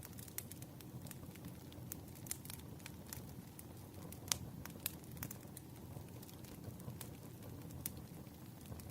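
Campfire crackling: a steady low rumble of burning wood with irregular sharp pops and snaps, the loudest about four seconds in.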